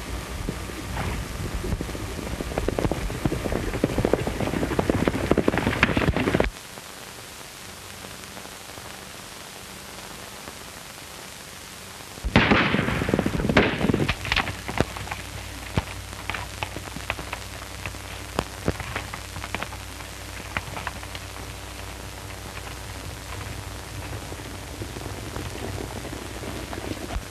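Hoofbeats of several horses galloping on a dirt trail, a dense clatter heard through the hiss and low hum of an old film soundtrack. The clatter cuts off abruptly about six seconds in, leaving only hiss, then returns loud about twelve seconds in and thins to scattered hoof strikes.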